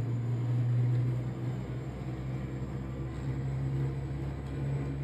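A steady low hum, like a motor or appliance running in the room, holding its pitch throughout.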